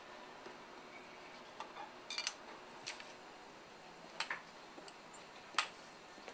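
Sparse light clicks and clinks of plastic bottles and glassware being handled on a lab bench, a few short taps at a time over a faint room hum.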